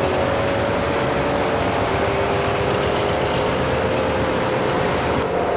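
A locomotive running steadily: a continuous mechanical noise with a couple of steady droning tones and no clear separate beats.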